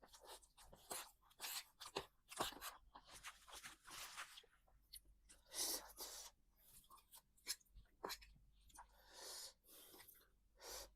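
Someone eating close to the microphone: irregular crunching and chewing, many short crisp noises one after another.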